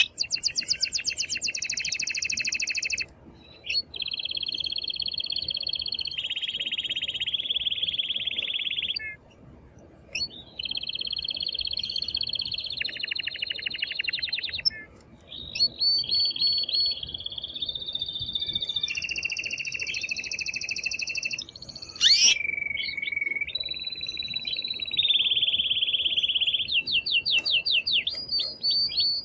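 Male domestic canary singing in long rolling trills, fast strings of repeated notes that change from one pattern to the next, with a few short pauses. This is the loud, excited song that a male uses to stimulate a female to breed.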